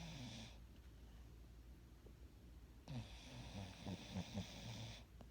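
Snoring in sleep. The end of one snore fades in the first half-second, and a longer raspy snore starts about three seconds in and lasts about two seconds. Each snore is a breathy hiss over a low fluttering rattle.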